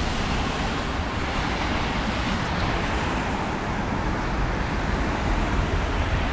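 Street traffic noise: cars passing on the road, a steady wash of roadway noise.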